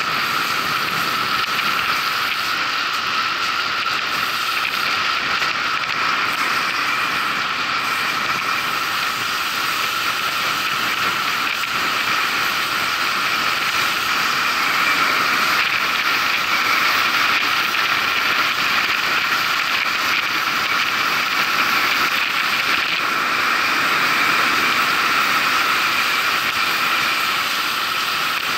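Bicycle being ridden: a steady mechanical whirr and ratcheting of the drivetrain that runs on without a break, a little louder in the second half.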